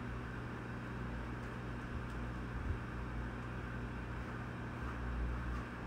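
Steady road and engine noise inside a moving car's cabin, an even hiss over a low hum.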